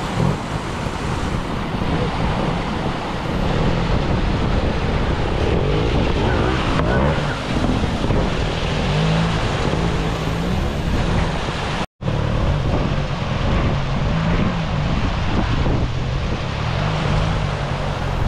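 Trials motorcycle engine, its throttle worked up and down as the bike picks its way through a flooded stream bed, over the rush of fast-flowing water. The sound drops out for an instant about twelve seconds in.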